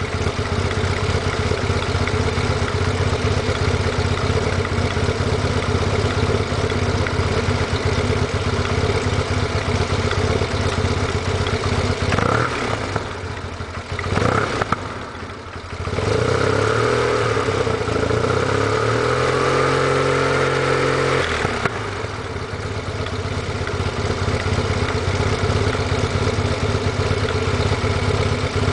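Yamaha TMAX scooter's parallel-twin engine running through a Malossi full exhaust, fairly quiet and dry-sounding. It idles steadily, is blipped briefly a couple of times about halfway through, then is held at rising revs for about five seconds before it drops back to idle.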